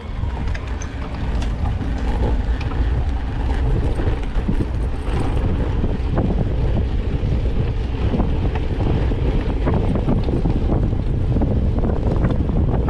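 Wind buffeting the microphone while riding, a steady low rumbling rush with a few scattered clicks.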